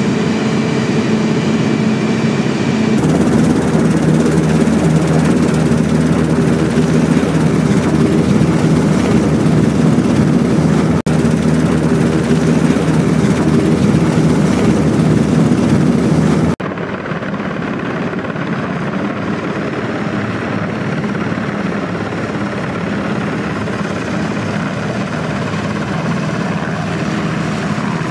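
Sikorsky HH-60W helicopter's twin turboshaft engines and rotor running, a dense steady noise with a low engine hum. The sound changes abruptly about 3 seconds in and again at about 16 seconds, where it becomes quieter and duller, as one clip cuts to the next.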